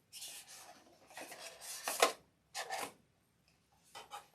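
Product box being opened by hand: several bursts of packaging rubbing and sliding, with a sharp snap about two seconds in and a shorter scrape after it.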